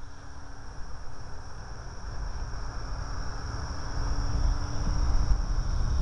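Distant electric RC plane, a Parkzone P-51D Mustang with a brushless motor, humming steadily through its propeller and growing louder as it flies. Wind buffets the microphone with a heavy rumble.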